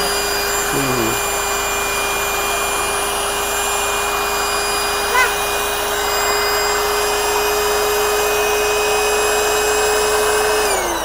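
Small electric air pump running steadily with a constant whine, inflating a car air mattress; near the end it winds down and stops.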